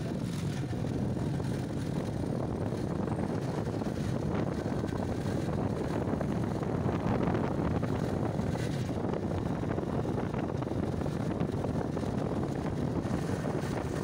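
Motorcycle riding along at steady speed: a continuous low engine and road rumble mixed with wind rushing over the microphone.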